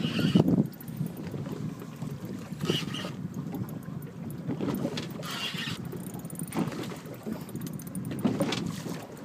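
Wind and sea noise aboard a small open boat, a steady low rumble, with three short hissy bursts about three seconds apart.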